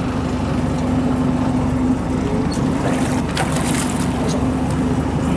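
A fishing boat's engine running steadily with a constant low hum. Brief splashing about two and a half to four seconds in, as a cod is pulled up at the boat's side and gaffed.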